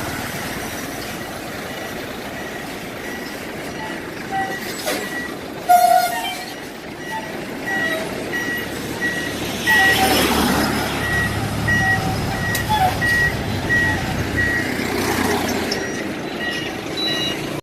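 A vehicle's reversing alarm beeping about twice a second over a running engine and road noise, with a short loud toot about six seconds in.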